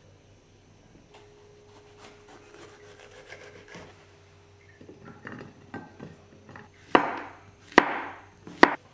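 Kitchen knife chopping on a wooden cutting board: a few light taps, then three loud chops less than a second apart near the end.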